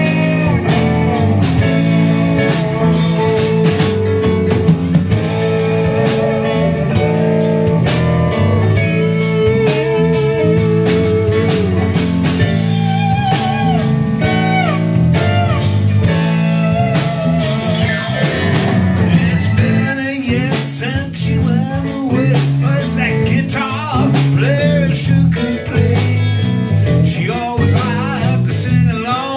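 Live blues-rock band playing: electric guitars, electric bass and drum kit with a steady beat, under a lead line of wavering, bending notes.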